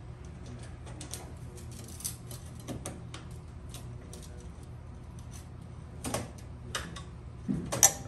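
Steel screwdriver tip clicking and scraping against a screw on the sheet-metal back panel of a gas range as the screw is tried into a hole that does not line up. It makes a run of light ticks, then a few louder metal clicks, the sharpest just before the end.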